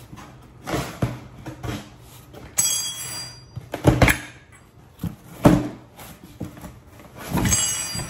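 A cardboard shipping box and its packaging being handled: irregular rustles, scrapes and knocks, with louder thumps about four and five and a half seconds in.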